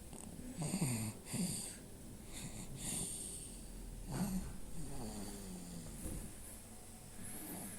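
A child snoring in sleep: a series of short snoring breaths, irregularly spaced.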